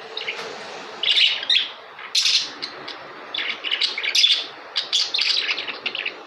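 Budgerigars chirping in quick high bursts, several bouts with short pauses between them.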